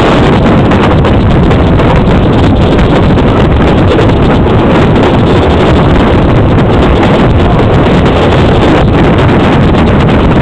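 Loud, steady wind noise on the microphone at the open window of a moving train, mixed with the train's running noise.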